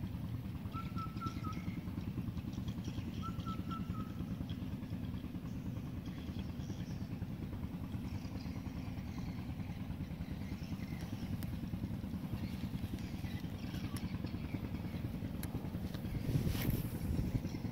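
A small engine running steadily with a low, evenly pulsing rumble.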